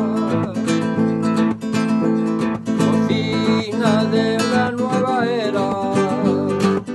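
Background music: a song with strummed acoustic guitar and a wavering melody line over it, between sung lines.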